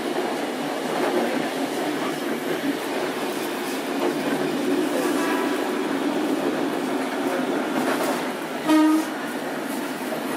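Randen Mobo 21 retro tram under way, heard on board: a steady running noise of wheels and motor on the rails. About nine seconds in comes a short pitched toot.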